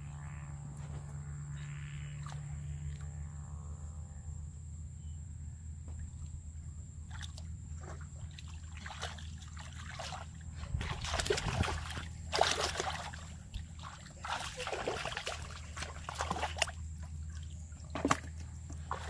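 Hands sloshing and splashing in shallow muddy pond water while groping along the bottom for fish, soft at first, then a run of louder, irregular splashes from about ten seconds in. A steady low hum sits underneath throughout.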